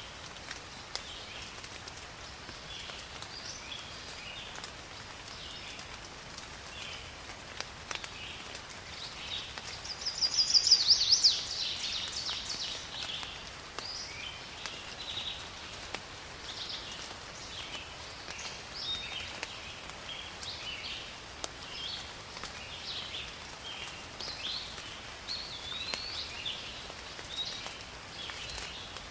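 Forest ambience: several birds chirping and calling throughout, with one much louder, rapid song phrase of quick falling notes about ten seconds in, over a soft steady hiss with faint scattered ticks.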